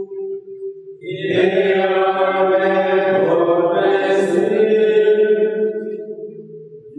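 Sung liturgical chant in long held notes, starting about a second in and fading near the end.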